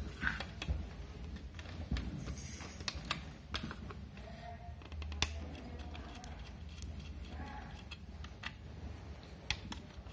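Scattered small clicks and ticks of a screwdriver working the screw terminals of a 12 V 5 A switching power supply while the metal-cased unit is handled, over a low steady hum.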